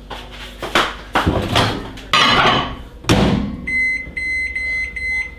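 Microwave oven being loaded and set: a few knocks and a louder clunk as the bowl goes in and the door shuts, then about five short high beeps from the keypad as its buttons are pressed.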